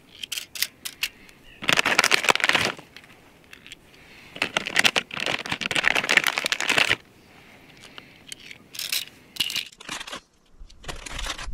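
A small plastic bag of airgun ammunition crinkling in two long stretches as rounds are picked out of it, between short sharp clicks of the rounds being loaded into a BinTac T9 extended stick magazine.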